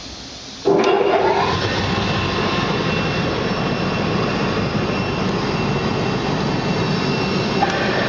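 A bubble-type washing machine starting up: its air blower switches on suddenly with a brief rising whine as it spins up, then runs steadily with the water in the stainless-steel tank churning and bubbling. A click near the end as another switch on the control box is pressed.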